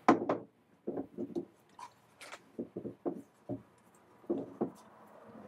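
Four-jaw lathe chuck being screwed by hand onto its threaded spindle nose: a knock as it goes on, then short clunks and rubs as it is turned round in spurts.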